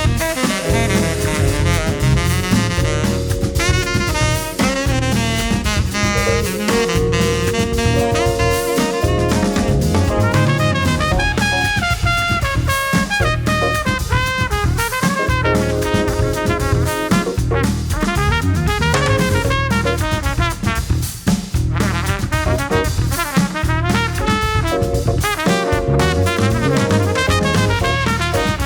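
Background music: upbeat swing-style jazz with brass and drums.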